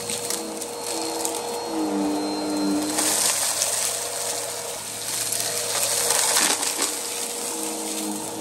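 Upright vacuum cleaner running steadily, its brushroll sucking up fine dirt, with scattered crackles of debris going up the nozzle.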